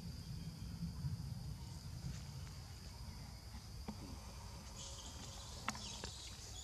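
Forest ambience: a steady high drone of insects (crickets or cicadas) over a low rumble, with a few faint clicks and a sharper tick near the end.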